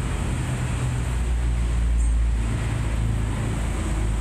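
Steady low background rumble with a faint hiss over it.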